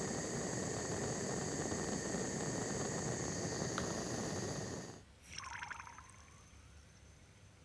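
Gas torch flame hissing steadily while heating a steel bolt red-hot, cutting off about five seconds in. Then a brief sizzle and bubbling as the hot bolt is quenched in oil for oil bluing.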